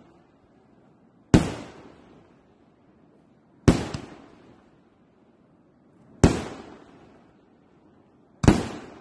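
Fireworks going off: four loud bangs about two to two and a half seconds apart, each trailing off in a rumbling echo.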